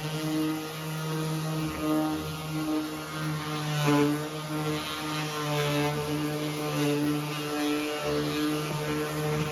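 A power tool's electric motor running at steady speed, its hum wavering slightly as the load changes.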